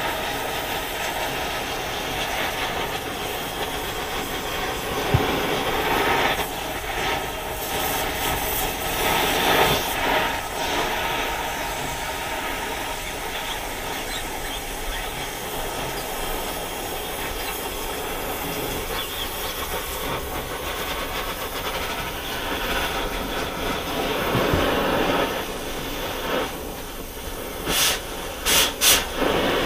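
Oxy-fuel torch flame hissing steadily as it heats the starter ring gear on a flywheel. Near the end come a few short, sharp blasts as sparks fly off the ring.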